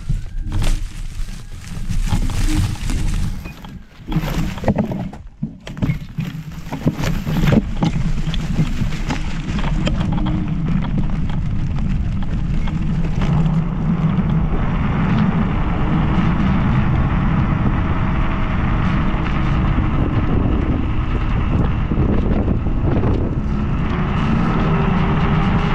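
Gusty wind buffeting the microphone, then from about ten seconds in a steady, even motor drone.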